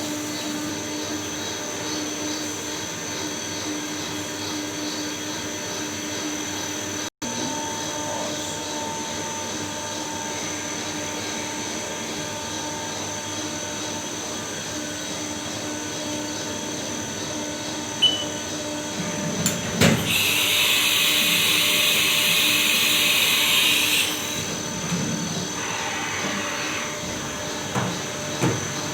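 Steady hum of machine-shop machinery with a few held tones. About twenty seconds in, a click and a couple of knocks are followed by a loud hiss of compressed air lasting about four seconds, then a few more knocks.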